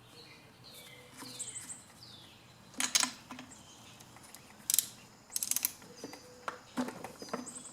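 Ratchet wrench clicking in several short bursts while the spark plug is loosened from the 4-cycle trimmer engine, to check for spark. Birds chirp faintly in the background.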